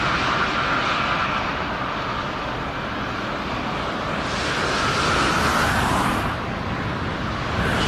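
Aircraft engine noise: a steady, loud roar from a plane on approach or landing, changing in tone near the end.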